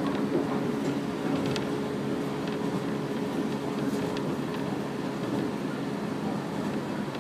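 Running noise heard inside a JR 115-series electric train at speed: a steady hum and rumble of motors and wheels on rail, with a few faint clicks.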